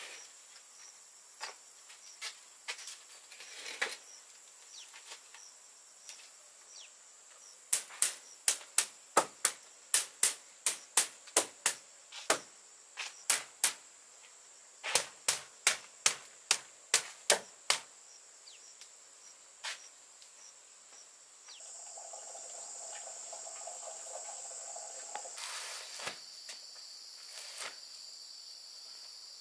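Sharp taps, two to three a second, in two runs of about ten, with a few single taps later, over a steady high drone of insects.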